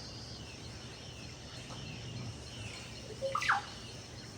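Wild birds calling in the rainforest: several short, high falling whistles, then a louder call sliding downward in pitch about three and a half seconds in, over a steady low background hum.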